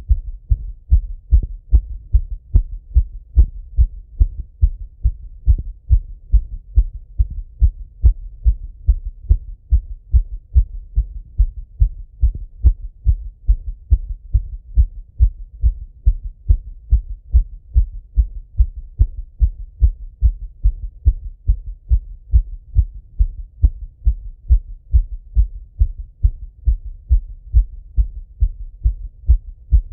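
A man's heartbeat heard through a Littmann stethoscope: dull, low lub-dub thuds in a fast, even rhythm, the heart rate raised by running.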